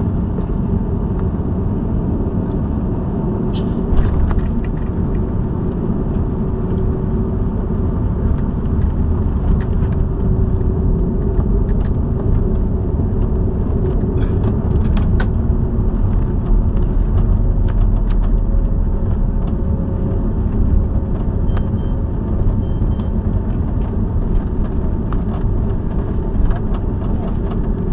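Airbus A330-200 cabin noise just after landing: a loud, steady low rumble of the engines and the airframe rolling on the ground, with scattered light clicks and rattles.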